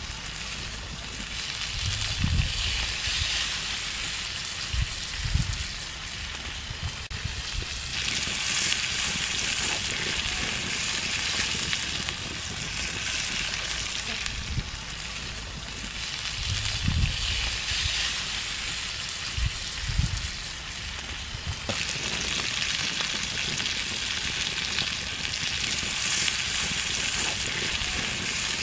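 Whole shrimp frying in hot oil in a clay pan over a wood fire: a steady sizzle that swells and eases by turns. A few low thumps are heard along with it.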